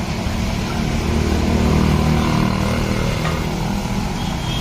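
A motor vehicle's engine running close by, swelling to its loudest about two seconds in and then easing off, as traffic passes.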